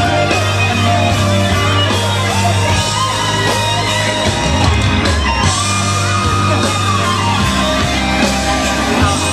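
Background rock music with a singing voice over a steady bass line.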